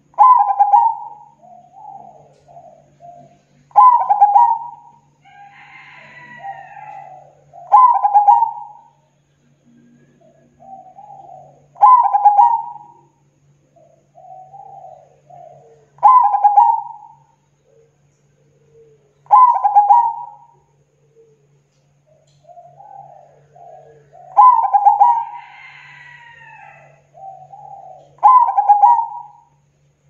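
A zebra dove (perkutut) singing: about eight cooing phrases, one every four seconds or so, each opening with a loud run of quick staccato coos and trailing off into softer coos.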